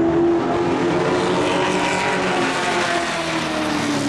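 Racing truck engines running on a dirt oval, the main engine note sliding slowly down in pitch.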